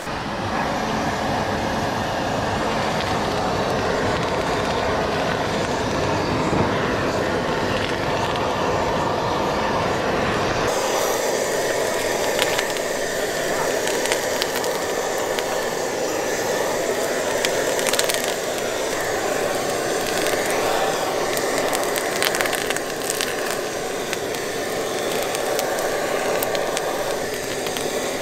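Strong gas flame running steadily under spicy chicken feet cooking over direct fire, with sizzling and crackling pops from the food. The sound changes abruptly about ten seconds in, becoming hissier with sharper crackles.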